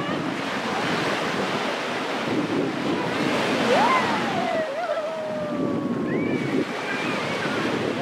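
Small sea waves breaking and washing over the shallows at the shoreline, a steady rushing surf, with wind buffeting the microphone.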